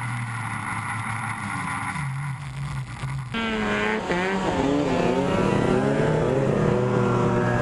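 Snowmobile engines, a modded Ski-Doo XP among them, running under load as they tow a 600-pound fish hut over snow. The note is steady at first; from about three seconds in the engine pitch rises and falls.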